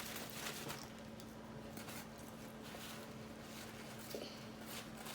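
Faint scattered clicks and rustles over a steady low hum.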